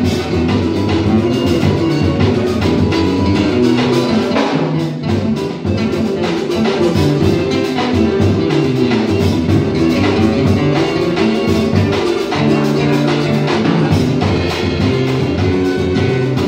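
Live instrumental choro played by a quartet: clarinet, cavaquinho, seven-string acoustic guitar and drum kit, all playing together. The bass line moves steadily under a busy strummed and drummed rhythm.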